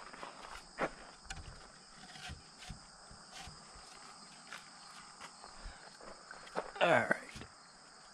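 Crickets chirping steadily in the background, with a few light knocks as timber braces are handled. About seven seconds in, a brief voice-like sound with a bending pitch is the loudest thing.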